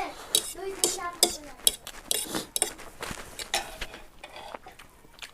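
Eating from a bowl of spicy ramen noodles: utensils clinking and scraping against the bowl in a run of short, sharp clicks.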